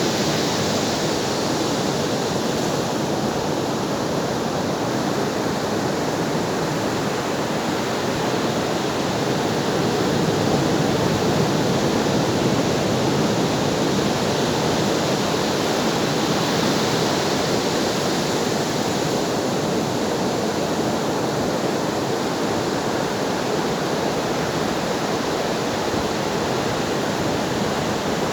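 Ocean surf rushing steadily, with only faint slow swells and no distinct breaking waves.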